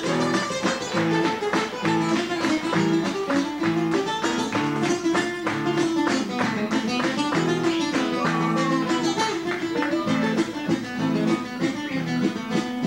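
Two nylon-string classical guitars played together as a duo, in fast, rhythmic plucked passages of Latin American music.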